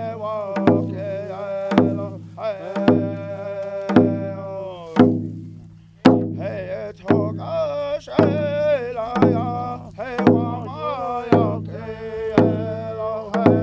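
A drum beats a steady stroke about once a second while a group of voices sings a round dance song. The singing trails off about five seconds in, then comes back in with the drum.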